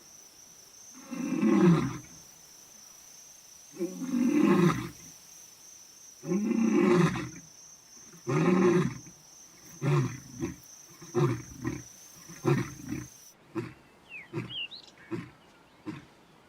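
Male lion roaring a territorial roar: four long, loud moaning roars, then a series of shorter grunts that fade away. A steady high whine runs in the background and stops about 13 seconds in, and faint bird chirps come near the end.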